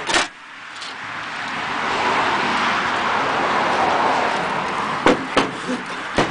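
A car passing by: tyre and road noise swelling over a couple of seconds, then slowly fading. A sharp metal knock at the start and a few short knocks near the end.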